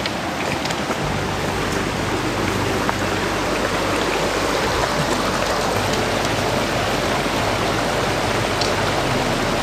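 Rushing water of a stream, a steady, even hiss that swells slightly in the first second and then holds.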